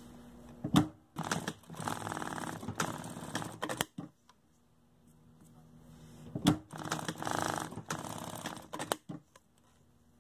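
Domestic sewing machine stitching a velcro strip onto a fabric collar in two short runs of rapid needle clatter: the first from about a second in to about four seconds, the second from about six and a half to nine seconds.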